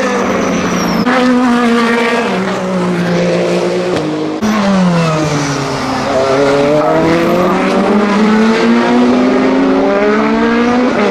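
Lamborghini SC63's twin-turbo 3.8-litre V8 racing past. The engine note steps down in pitch as the car brakes and downshifts, then climbs steadily as it accelerates away. The sound cuts off abruptly and changes about a second in and again about four seconds in.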